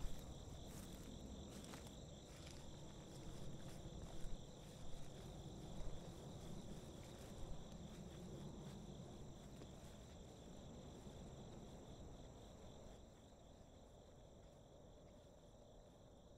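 Crickets chirring steadily over a low rumble, with a few short knocks in the first half. The sound drops lower about thirteen seconds in.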